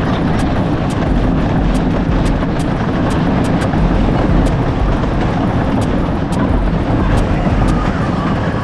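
A loud, steady rushing rumble with most of its weight in the low end, holding level throughout.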